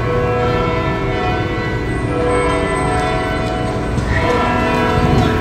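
Church bells ringing, several overlapping tones struck again and again and left to ring on, echoing off the surrounding buildings.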